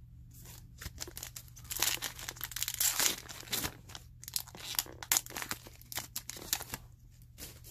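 Crinkling and tearing of a Topps Heritage baseball-card pack's wrapper as it is handled and ripped open, a dense run of crackles and rips that is loudest around two to three seconds in and again near the middle.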